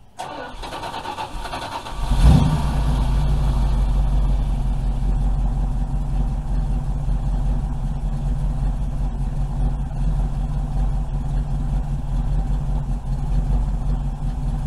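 A 440 Magnum big-block V8 in a Dodge pickup cranking on the starter for about two seconds, catching with a brief rev, then settling into a steady, deep idle.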